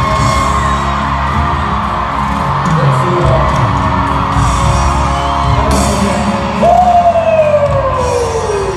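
Stadium concert audio: amplified music mixed with a crowd of fans yelling and whooping. About two-thirds of the way in, a loud voice holds a long note that slides down in pitch.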